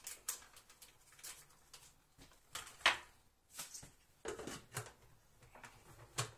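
Scattered light clicks and rustles as diced bacon is shaken from a plastic pack into the stainless steel bowl of a kitchen machine, with the bowl's lid being handled near the end.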